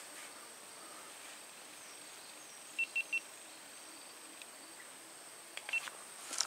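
Quiet swamp-side ambience with a steady high insect hum. Three quick identical high pips come about three seconds in, and a few soft clicks and pips near the end.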